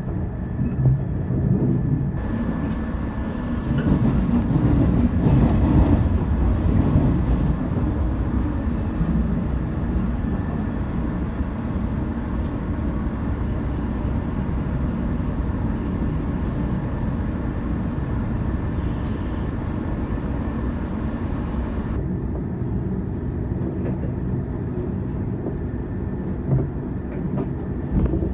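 Running noise of a 415-series electric multiple unit travelling on the rails, heard from the front of the train. It grows louder a few seconds in, then settles to a steady level.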